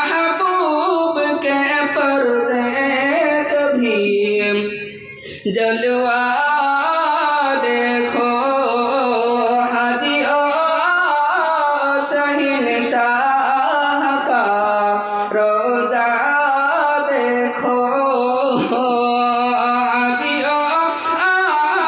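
A man singing an Urdu naat, a devotional song in praise of the Prophet, in long melismatic lines, with a short breath pause about five seconds in.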